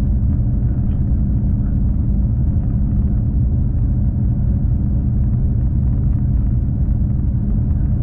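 Steady low rumble of a V/Line diesel passenger train under way, with a constant engine hum and no change in pace.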